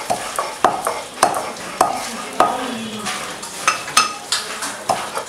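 Heavy metal pestle pounding in a metal mortar, knocking about once every half second or so in a steady rhythm, each strike with a short metallic ring.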